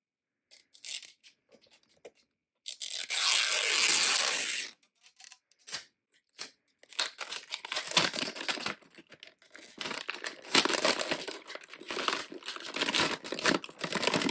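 Magic Mixies Pixlings blind-box packaging being torn open by hand: scattered small rustles, then one long loud rip about three seconds in, followed by several seconds of dense crinkling as the clear plastic wrap is pulled off the potion-bottle package.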